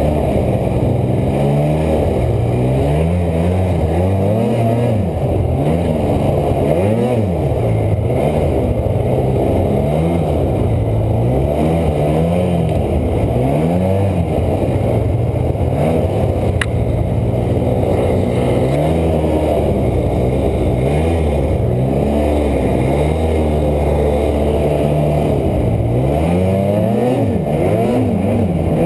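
Snowmobile engine running under load through deep fresh snow, its pitch rising and falling over and over as the throttle is opened and eased.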